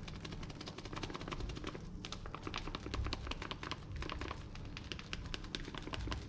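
Plastic bag of grated parmesan crinkling in a rapid, uneven run of small clicks as gloved hands squeeze and shake cheese out of it over a bowl of pasta.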